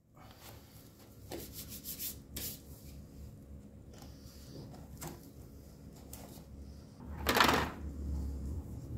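Clear plastic blister pack of an oil filter service kit being handled: a run of light clicks and crinkles, then one louder plastic rustle and scrape about seven seconds in as the pack is picked up and moved.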